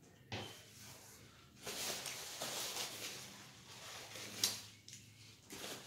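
Rustling and crinkling of a small wrapper and a white wipe being handled and unfolded, in uneven bursts, with a sharp tick about a third of a second in and another near the end.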